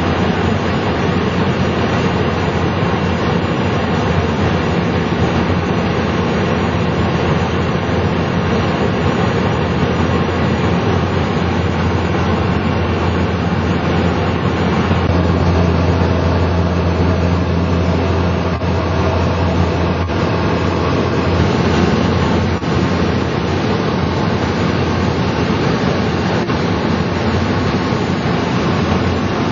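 Steady drone of a single-engine turboprop plane, a Cessna 208 Caravan, flying low overhead, heard through a vehicle's window. It swells a little in the middle.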